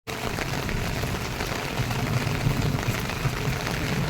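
Steady rain falling, a dense patter of drops with no letup.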